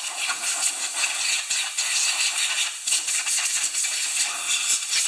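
Compressed air hissing from a blow gun on a coiled air hose as it blows off a chainsaw engine, wavering in strength as the nozzle moves, then cutting off suddenly right at the end.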